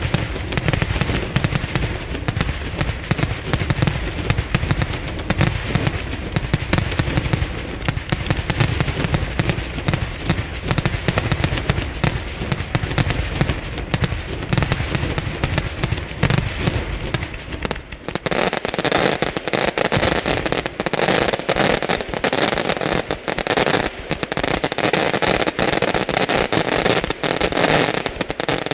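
A line of ground-fired 3-inch salutes and flash petards going off in rapid, unbroken succession, a dense rattle of overlapping bangs. About two-thirds of the way through the bangs lose their deep boom and turn sharper and thinner.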